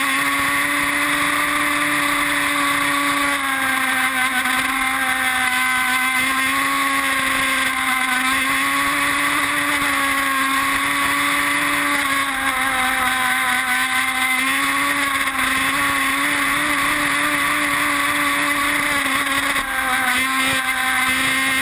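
Two-stroke gas engine of a radio-controlled R42 racing boat running flat out at high revs, heard close up from on board. Its steady high note dips slightly and recovers every few seconds as the boat turns, over the hiss of spray.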